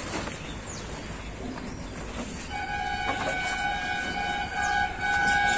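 A long, steady horn blast starting about two and a half seconds in and holding to the end, dipping briefly a couple of times.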